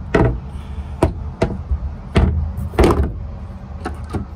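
Bilge access hatch on a fiberglass boat's cockpit being shut and handled: a series of sharp knocks and thumps, about six in four seconds, over a steady low rumble.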